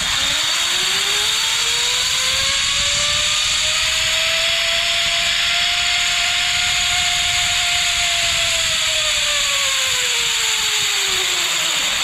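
Zipline trolley pulleys running along a steel cable: a loud rushing hiss with a whine that rises in pitch as the rider picks up speed, holds for a few seconds mid-run, then falls as the trolley slows near the end.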